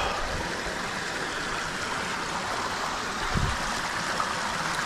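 Shallow rocky stream running over rocks, a steady rush of water. A soft low thump comes about three and a half seconds in.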